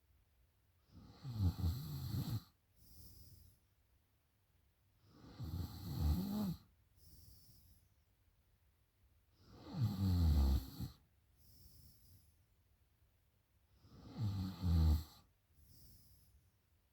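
A woman snoring in sleep after drinking: four loud snores about four seconds apart, each followed by a short, softer breath out.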